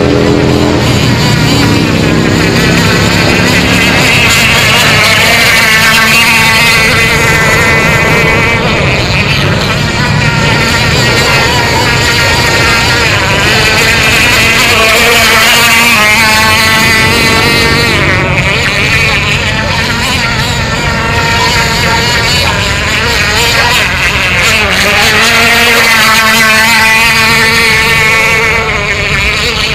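K&B 3.5 cc two-stroke glow engine of a radio-controlled F1 model boat running at speed on the water, its carburettor being tuned. The loud engine note keeps rising and falling in pitch as the boat passes back and forth.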